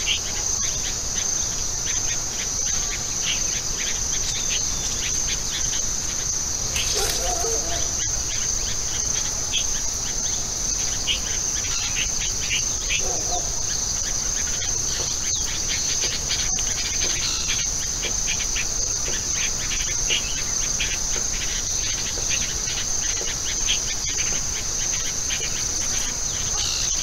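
Insect chorus, a steady, unbroken high-pitched shrill, with scattered short chirps over it.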